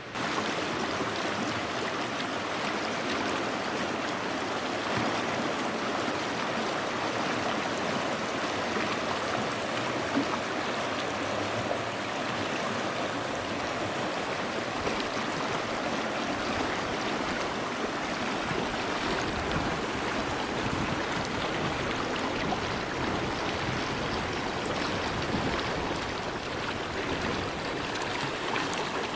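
Fast-flowing snowmelt mountain creek rushing and splashing over rocks between snowbanks: a steady, even rush of water.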